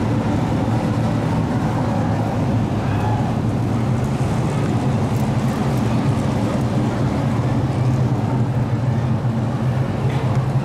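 A pack of dirt-track race trucks running around the oval, their engines making a steady, loud, dense drone.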